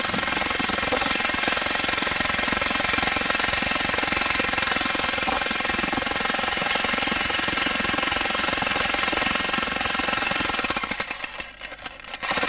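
Electric jackhammer breaking rock, hammering in a fast continuous rattle, then briefly letting up about a second before the end.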